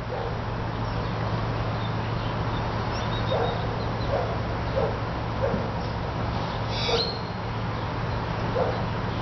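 Steady low rumble of road traffic and a distant diesel locomotive, with about six short animal calls spread through the middle and later part.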